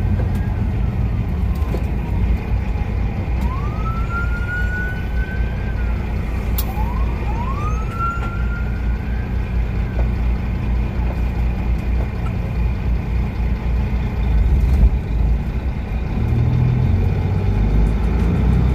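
Kenworth W900 semi truck's diesel engine running with a steady low rumble as it rolls slowly toward a toll booth. Two whistling pitch glides come over it, about 4 and 7 seconds in, each rising quickly and then sliding slowly back down.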